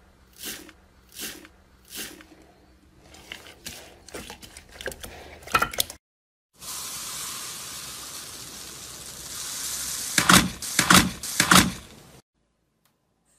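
Slime being squeezed and pressed, making sharp crackling pops, scattered at first about one a second. After a brief gap comes a steady hiss with three loud crackles close together, and then the sound cuts off suddenly.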